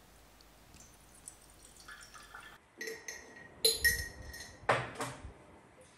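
Garlic water being strained, trickling faintly through a metal mesh strainer into a glass jar. It is followed by several clinks and knocks of metal and glass as the strainer and jar are handled, some leaving a short glassy ring.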